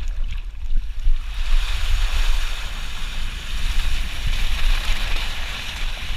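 Rushing water and wind noise from a ride down a multi-lane racing water slide: a broad hiss of spray and flowing water that swells about a second in and holds steady, over a low rumble of wind buffeting the microphone.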